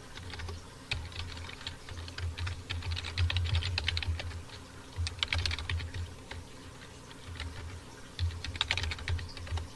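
Computer keyboard being typed on in quick bursts of keystrokes, with short pauses between the bursts.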